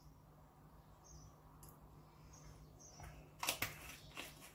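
Spice jar and teaspoon being handled at a countertop: mostly quiet with a low steady hum, then a cluster of light clicks and knocks about three and a half seconds in, and one more shortly after.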